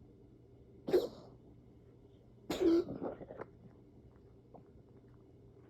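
A chronic cough: one short cough about a second in, then a longer fit of several coughs between about two and a half and three and a half seconds.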